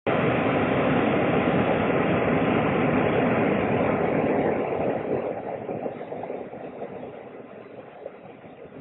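Shallow stream rushing over stones, a steady watery noise that fades down gradually over the second half.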